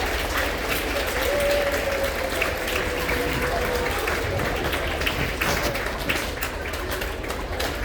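Audience of students applauding steadily after an award winner's name is called.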